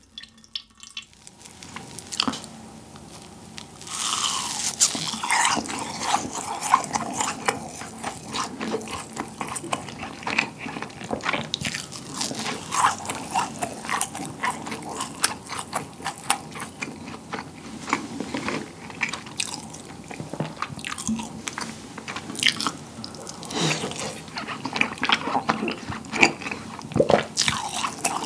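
Close-miked chewing of rasgulla, soft syrup-soaked cheese balls: wet mouth sounds with many small sharp clicks, louder from about four seconds in.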